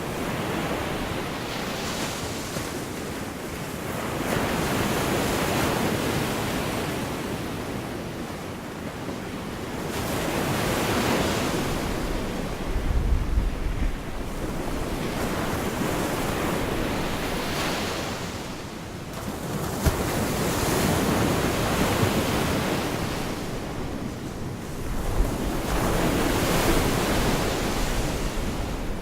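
Gulf of Mexico waves breaking and washing up a beach, the surf swelling and ebbing about every five to six seconds. Wind buffets the microphone briefly about halfway through and again near the end.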